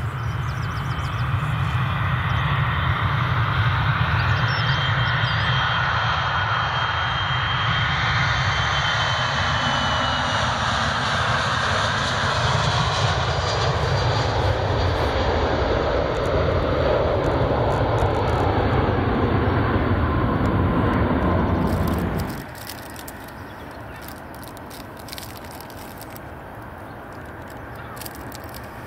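Airliner engines as the aircraft passes close by: a dense, loud rush with a thin high whine that bends down about ten seconds in. About 22 seconds in the sound drops off abruptly to a much quieter background with scattered clicks.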